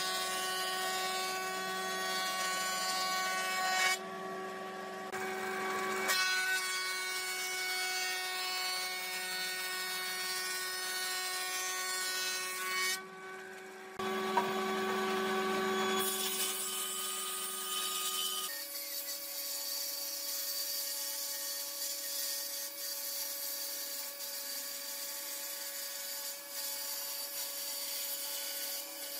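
Electric combination woodworking machine (thickness planer with table saw) running, with boards being fed through it: a steady motor hum with a hiss over it. About two-thirds of the way through, the hum shifts to a different pitch.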